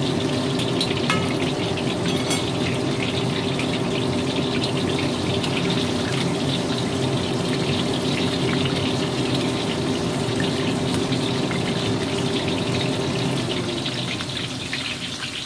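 Coated chicken pieces deep-frying in a wok of hot oil, a steady crackling sizzle, with spatula and skimmer stirring through it. A steady low hum runs underneath and fades out near the end.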